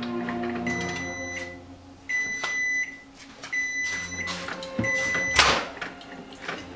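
Microwave oven beeping four times, each beep long and steady, about a second and a half apart, marking the end of the heating cycle. A sudden loud noise cuts in just after the last beep.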